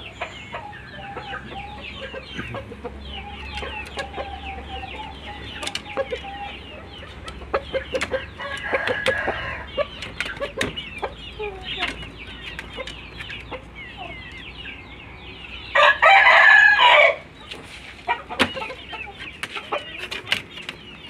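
Chickens clucking and chirping with many short calls, and one loud rooster call lasting about a second about three quarters of the way through.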